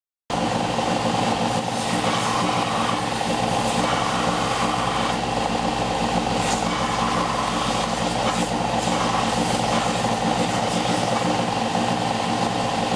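Electric power tool's motor running at a steady speed, with a few faint scratchy touches of work against it, typical of sanding or grinding the knife's wooden handle and pins.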